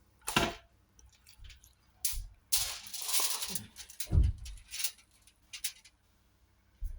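Kitchen handling noises while preparing a whole chicken for roasting: a few sharp clicks and knocks, a rustle about three seconds in, and a dull thump just after four seconds.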